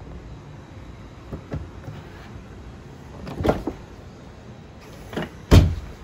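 Tesla Model Y door fitted with aftermarket auto-present handles and soft-close latches being worked: a short swell of motor and mechanism sound about three and a half seconds in, then a knock and a heavier thud near the end as the door shuts.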